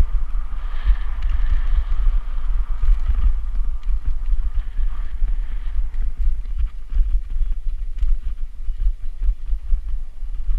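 Wind buffeting the microphone as a mountain bike rolls over bumpy grassland, with a constant rumble and many small rattles and knocks from the bike and camera mount jolting over the ground.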